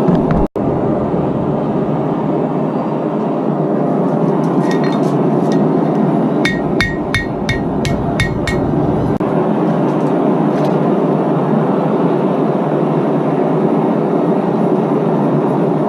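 Steady rushing roar of a forge, with a quick run of about eight ringing hammer blows a little past the middle as the hot mokume gane billet is shaped, plus a few lighter taps just before.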